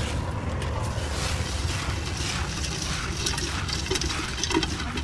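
Hand mixing chopped ingredients with wet spice masala in a steel bowl: a wet rustling and scraping with scattered small clicks, denser in the second half. Under it runs a steady low rumble of street noise.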